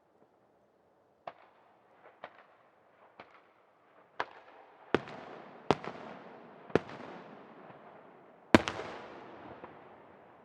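Aerial firework shells bursting overhead: a string of sharp bangs that grow louder, with the loudest about eight and a half seconds in. The later bangs each trail off in a fading wash of noise.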